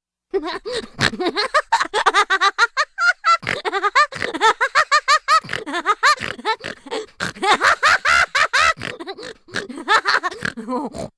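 Cartoon sound effect: a high-pitched, sped-up voice chattering and laughing in quick short syllables, several a second.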